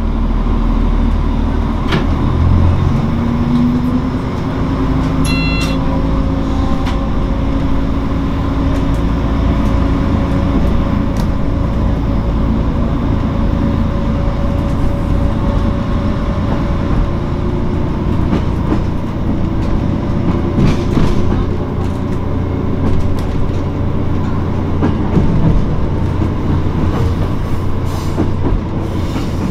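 Underfloor diesel engine of a Kyoto Tango Railway diesel railcar pulling away from a station: the engine's pitch rises about two seconds in as it accelerates, then it runs steadily under load over a low rumble of wheels on rail. A brief high tone sounds about five seconds in.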